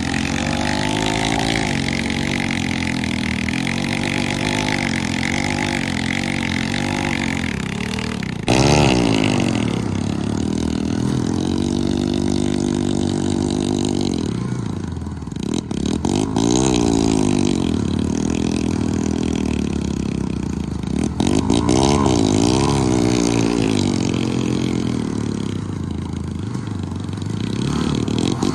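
Two modified Hero Splendor and HF Deluxe single-cylinder motorcycles revving hard under load while pulling against each other in a tug-of-war. Their engine notes rise and fall over and over as the throttles are worked.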